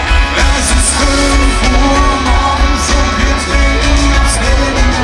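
Live pop-rock band playing through a festival PA, heard from the crowd: heavy bass, guitars and drums, with a voice singing the melody.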